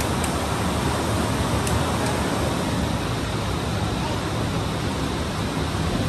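Storm noise: a steady rush of heavy rain and wind, with gusts buffeting the microphone.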